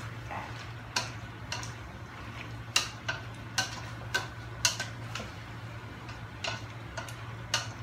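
A spatula clacking against the sides of a stainless-steel pot as chopped pork and intestines are stirred and sautéed: about a dozen sharp, irregular clicks over a steady low hum.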